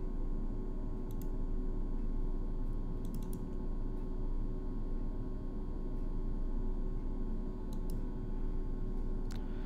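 Steady low hum of room and microphone noise with a few faint computer mouse clicks, including a quick cluster about three seconds in.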